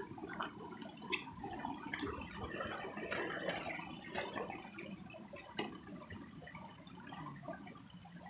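Water splashing and sloshing as a person wades through a shallow stream, with irregular small splashes and drips.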